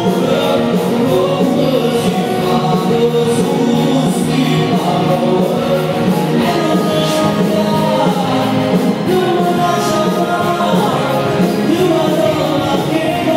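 Neomelodic Neapolitan pop song: singing over a steady instrumental backing.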